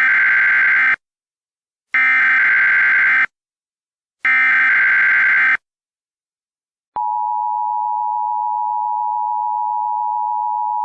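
Emergency Alert System header: three harsh bursts of SAME data tones, each just over a second long with about a second between them. About seven seconds in, the steady two-tone EAS attention signal starts and carries on.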